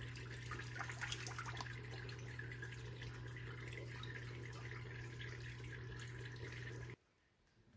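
Aquarium water splashing and trickling steadily over a low pump hum, with a few light clicks about a second in. It cuts off abruptly near the end.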